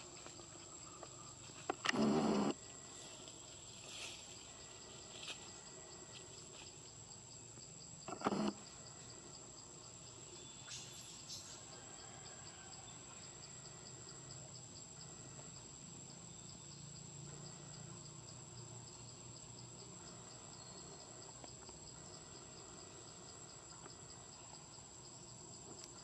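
Insects calling steadily: a constant high whine with a fast pulsing chirp beneath it. Two brief, louder noises break in, about two seconds in and about eight seconds in.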